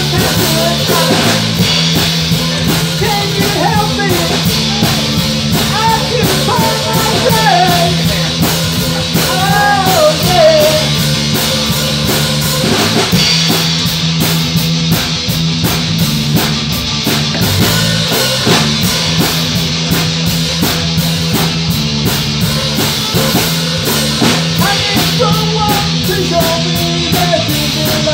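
Live rock band playing: electric guitars and a drum kit with a male lead vocal. The singing comes in the opening stretch and returns near the end, with an instrumental passage in between.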